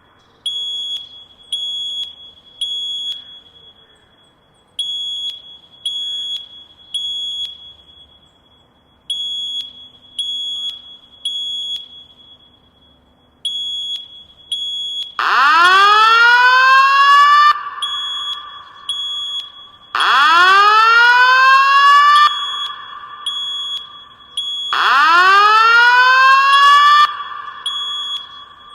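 Fire alarm sounding: groups of short, high-pitched beeps repeat. About halfway in, a much louder rising whoop tone joins and repeats every four to five seconds, with the beeps going on between the whoops.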